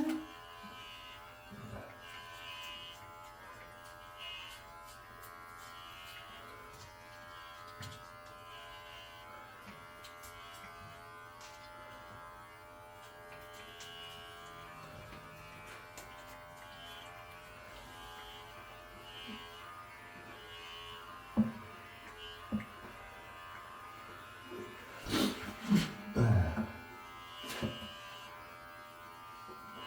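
Electric pet hair clippers buzzing with a steady hum as they cut a cat's fur. Near the end there are a few short, louder sounds.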